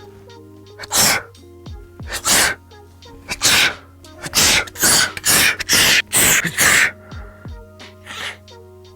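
A man sneezing again and again, about ten loud, sharp sneezes, coming fastest near the middle at about two a second. Background music with steady held notes plays underneath.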